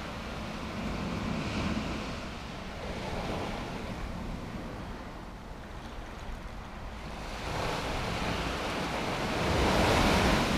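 Ocean surf breaking along the beach in slow swells of noise, loudest near the end as a wave breaks.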